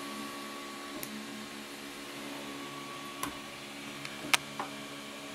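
3D printer running: a steady hum of several even tones, with a higher tone that stops about a second in and three faint clicks.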